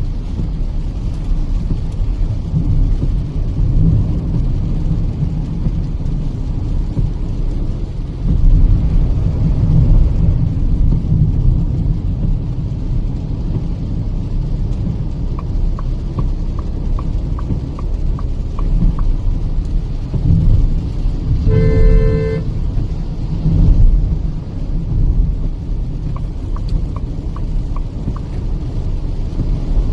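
Steady low road and engine rumble inside the cabin of a Kia Seltos petrol SUV cruising on a wet highway. About two-thirds of the way through, a car horn honks once, briefly. Two runs of light, regular ticks come and go.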